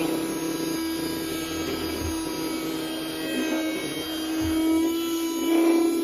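Baseus C2 desktop capsule vacuum cleaner running with a steady motor whine as it is pushed over a wooden desk, sucking up cookie crumbs.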